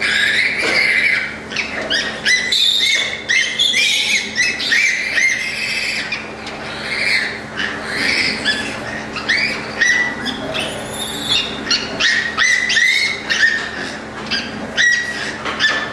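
A litter of young piglets squealing at the sow's teats: a dense, continuous stream of short, high, overlapping squeals, with a steady low hum underneath.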